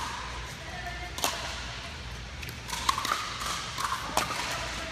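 Pickleball rally: hard paddles striking a plastic pickleball and the ball bouncing on the court, as sharp pops a second or two apart.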